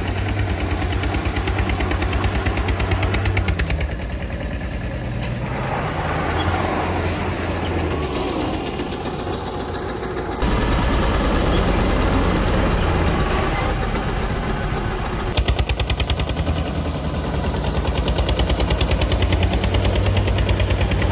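Diesel engines working hard under load in a tug of war: the Eicher 242 tractor and the Tata Sumo Gold pulling against each other on a tow strap, with a rapid, even clatter of engine firing. The sound changes abruptly about ten and fifteen seconds in.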